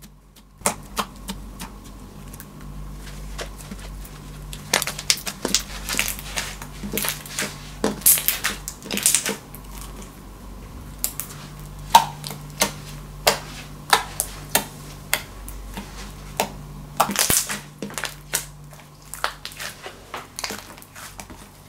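Hands kneading and pulling a mass of glittery pink and white slime, the sticky slime making irregular squelching clicks and pops.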